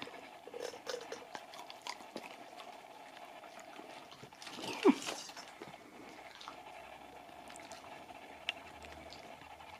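Faint clicking and smacking of a Siberian husky chewing and licking pieces of a carob dog Easter egg, with a short falling vocal sound about five seconds in.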